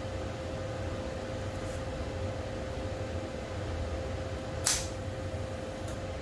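Steady low mechanical hum in a workshop, carrying one constant mid-pitched tone, with a short sharp hiss of air about four and a half seconds in.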